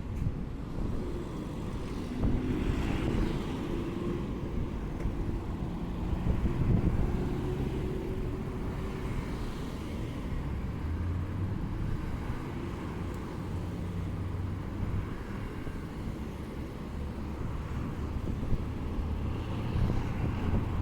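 Street ambience with the low, steady rumble of a motor vehicle running nearby; a faint engine tone drifts slightly upward over the first several seconds.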